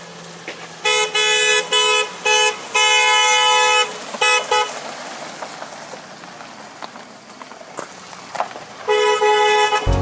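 Mercedes-Benz R 320 CDI's horn honking: a quick run of short toots and a held blast in the first few seconds, then one more long blast near the end.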